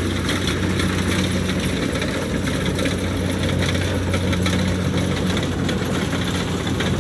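Kubota DC70 rice combine harvester running steadily: a constant low diesel drone under a wash of mechanical noise from the cutting and threshing machinery.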